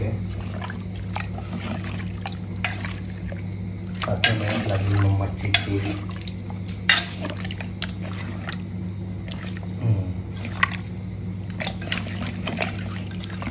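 Wet sloshing and clinking of a bowl as fish is mixed into an egg-and-masala marinade, with scattered small clicks, over a steady low hum.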